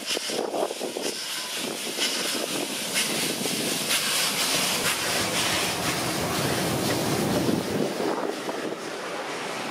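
R class steam locomotive R 707, a 4-6-4, passing close by running light (no carriages): a steady, noisy hiss and rush of moving engine that eases a little near the end as it goes past.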